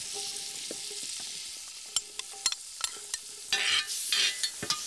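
Button mushrooms frying in butter in a hot pan, a steady sizzle, with a spoon clicking and scraping against the pan as they are stirred. The sizzle swells louder about three and a half seconds in and again near the end.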